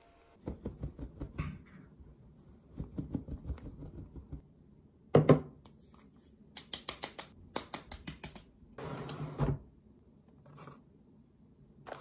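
Handling noises in a small room: bursts of rapid clicks and ticks, a loud knock about five seconds in, and a short rustle near nine seconds.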